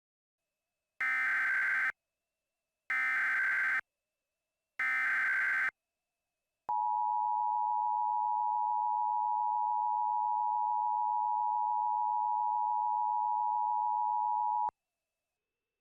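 Emergency Alert System opening: three one-second bursts of SAME header data, a harsh buzzing warble, about a second apart. Then the EAS attention signal, a steady two-tone beep held for about eight seconds, cuts off sharply near the end.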